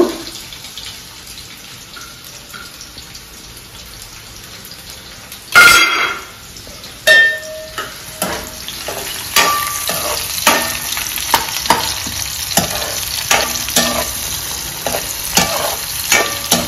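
Chopped onions sizzling as they fry in hot oil in a frying pan. A loud metallic clank comes a little past five seconds in; from about seven seconds a steel spatula stirs them, scraping and clinking against the pan about once a second.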